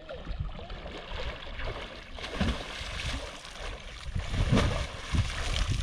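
Flowing water with irregular gusts of wind buffeting the microphone.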